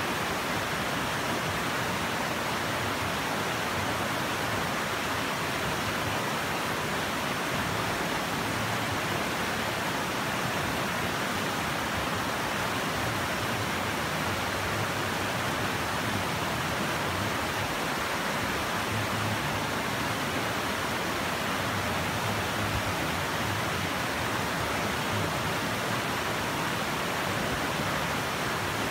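Shallow rocky river rushing over stones in rapids: a steady, even rush of water.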